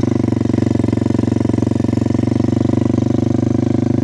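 Quad bike (ATV) engine running at a steady throttle as it is ridden, heard close up from the seat, with a fast, even pulsing.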